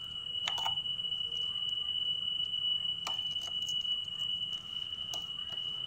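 A few brief, sharp metal clicks and taps from pliers and a screwdriver working at the makeshift pin that holds a motorcycle's front sprocket, over a steady high-pitched tone.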